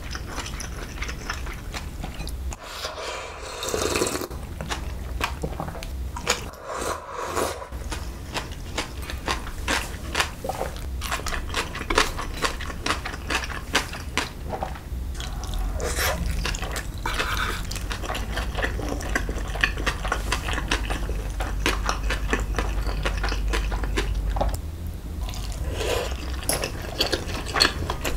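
Close-miked eating sounds: cold noodles slurped and chewed, then a steamed dumpling bitten and chewed, with wet mouth sounds and light clicks of chopsticks against the bowls. Near the end the chopsticks stir the cold broth.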